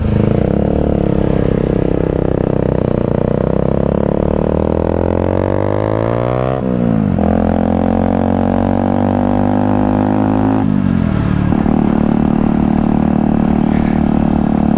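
125cc single-cylinder four-stroke motorcycle engine pulling through the gears: the revs climb for about six and a half seconds, drop at an upshift, rise again and drop at a second upshift about eleven seconds in, then hold steady.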